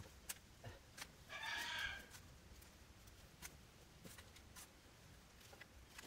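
A chicken gives one drawn-out call lasting just under a second, about a second and a half in. Around it, faint scattered scrapes and clicks of hands and a small hand tool working loose compost.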